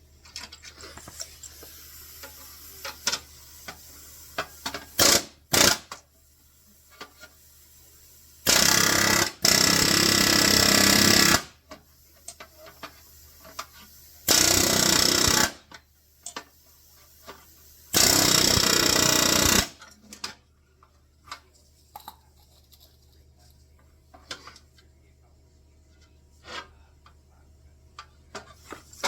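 Ingersoll Rand pneumatic air hammer driving rivets: two quick taps, then three bursts of one to three seconds each, with light clicks of metal handling between them.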